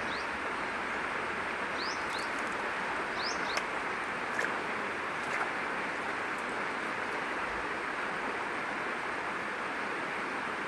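Birds calling in short rising chirps, each call quickly doubled, three times in the first few seconds, over a steady outdoor hiss. A few faint clicks come in the middle.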